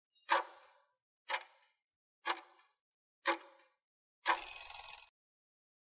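Countdown-timer sound effect: a stopwatch ticking about once a second, four ticks, then a short alarm ring lasting under a second as the time runs out.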